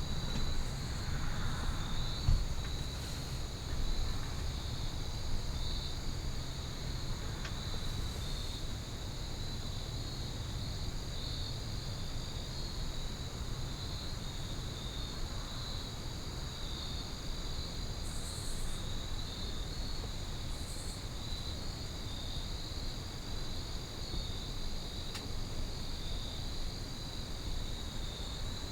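A chorus of crickets chirping steadily in a fast, even pulse, over a low rumble.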